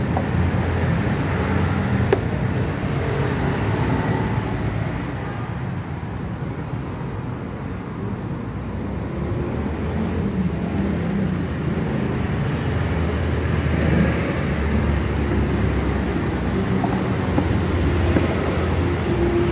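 Motor scooter engine running steadily, a little quieter for a few seconds in the middle.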